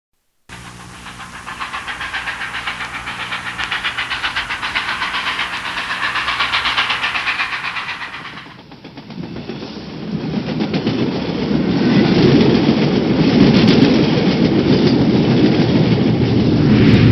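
Recorded train sounds: a train running with a fast, even clatter over a steady low hum, then a cut about eight and a half seconds in to a louder, rumbling train passage.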